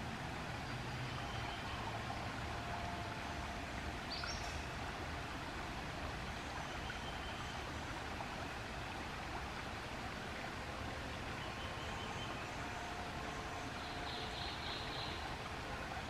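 Steady rushing of a shallow stream, with faint, brief bird calls over it, one a short rising call about four seconds in.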